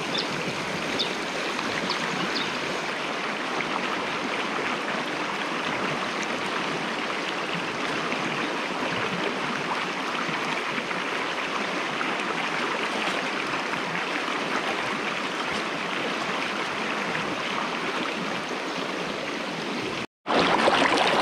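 Stream water running steadily over rocks, an even rushing sound. It drops out for a moment near the end and comes back a little louder.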